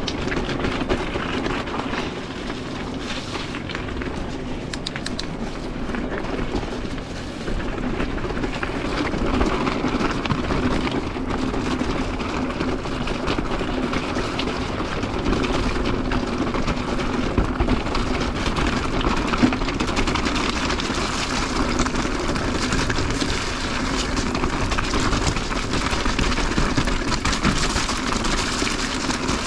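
Steady ride noise of an e-mountain bike on a rough, rocky trail: tyre rumble and frame rattle with scattered small clicks, a little louder after about seven seconds.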